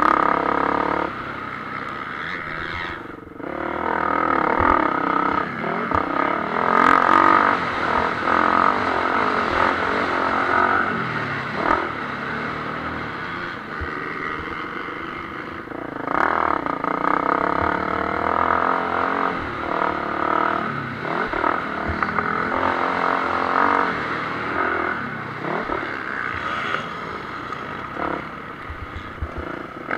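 Motocross bike engine heard from the bike itself, revving up and dropping back again and again as the rider accelerates, shifts and backs off through the track's corners, with a brief drop in throttle about three seconds in.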